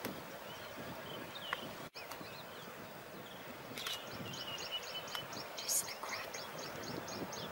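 Outdoor ambience with a steady hiss and wild birds calling: scattered whistled notes, then a rapid run of short, high repeated chirps through the second half. A brief dropout about two seconds in.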